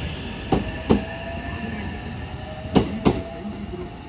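JR West electric commuter train pulling out, its wheels clacking over a rail joint: three pairs of clacks as the last bogies pass, the loudest pair just before the end. Under the clacks a steady rumble and a faint whine rising slightly in pitch.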